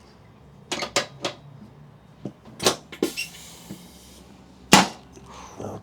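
A string of sharp clicks and knocks from a chiropractic shoulder adjustment on a treatment table, the loudest single knock near the end, with a brief rustle in the middle.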